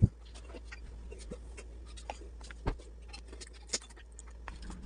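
Hands handling and opening a small cardboard face-wash carton: scattered light clicks, taps and paper rustles, with a sharp click at the start and a louder knock nearly three seconds in.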